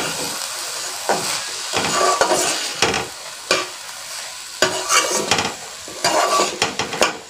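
Metal ladle scraping and knocking around a metal kadai as rice and dal are stirred while dry-frying, with a light sizzle underneath. The strokes come unevenly, several a second in spurts.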